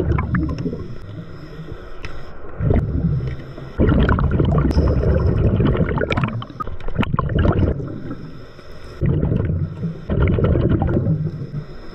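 Scuba regulator underwater: bubbles from the diver's exhaled breath gurgle in long surges every few seconds, with quieter breathing between.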